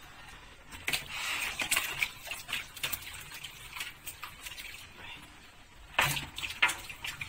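Hands working raw chicken pieces through a wet chermoula marinade in a bowl: irregular squishing with sharper knocks, the strongest about a second in, near two seconds and near the end.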